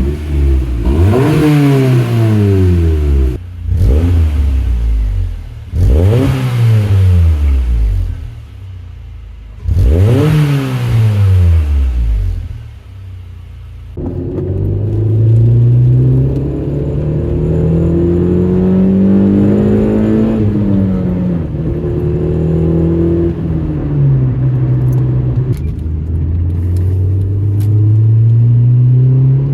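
1999 Honda Civic Si's 1.6-litre VTEC four-cylinder heard through its exhaust: four quick revs, each rising and falling away, with a raspy hiss on top. After a cut about 14 seconds in, the engine is heard pulling through slow rises and falls in pitch, as if accelerating through the gears, with a soft, bassy note and no drone.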